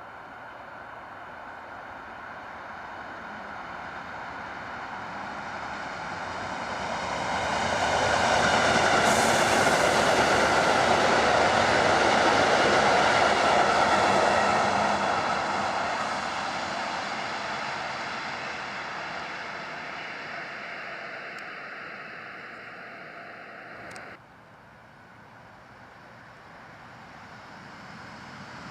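Commuter train passing by. Its running noise and a steady whine build up, hold loud for several seconds, then fade as it goes away. The sound drops off suddenly about three-quarters of the way through.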